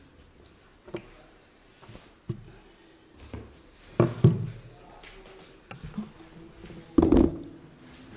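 Handling noise from a camera being picked up, moved and set down: a series of knocks and bumps with rustling between them, the loudest thumps about four seconds in and again about seven seconds in.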